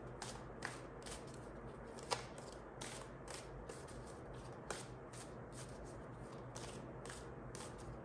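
Tarot cards being shuffled and drawn by hand: faint, irregular card flicks about twice a second, with sharper snaps about two seconds in and just before the five-second mark.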